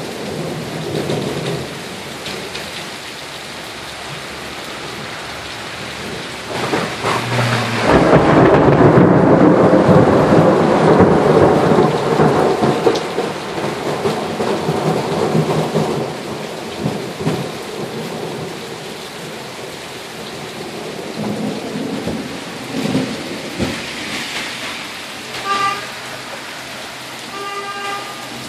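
Steady rain falling, with a roll of thunder that swells about seven seconds in, is loudest for a few seconds, then rumbles away over several more.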